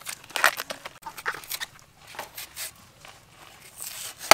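Short, crisp crackles and snaps of fresh produce being peeled: banana blossom bracts stripped back by hand and a metal peeler shaving the skin off a green fruit. A sharp click comes right at the end.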